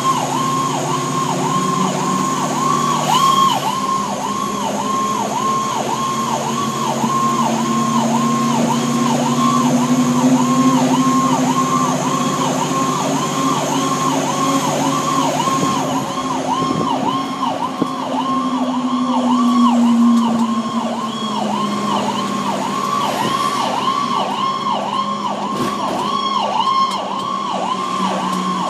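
Fire engine's electronic siren heard from inside the cab, one tone sweeping up and down about twice a second without a break, over the truck's engine running underneath.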